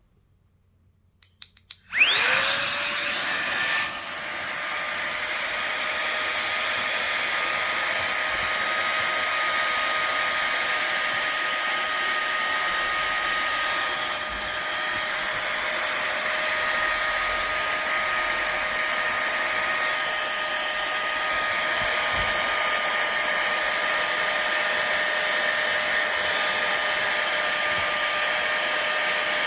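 Flextail Tiny Pump 2 mini electric air pump switched on with a few button clicks, its motor spinning up about two seconds in and then running steadily with a high whine and air rush.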